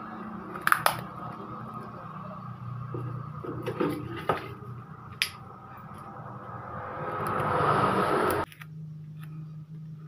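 Clear adhesive tape being pulled off the roll: a rasping tear that grows louder over about two seconds and stops abruptly. Before it come a few light clicks and knocks of the tape roll being handled.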